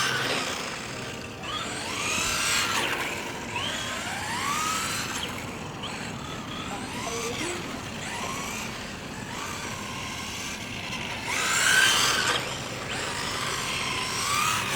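Brushed electric motor of a 1/10 RC touring car whining up and down in pitch as the throttle is worked, with tyre noise on pavement. It is loudest for about a second near the end, as the car passes close.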